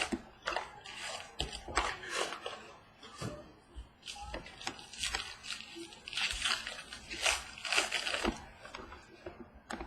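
Crinkling, rustling and clicking of card packaging and cards being handled as a pack of baseball trading cards is opened: irregular short crackles, growing busier about midway.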